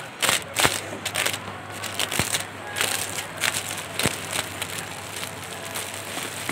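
Clear cellophane wrap crinkling and crackling in irregular bursts as it is bunched by hand and twisted closed around the top of a gift basket.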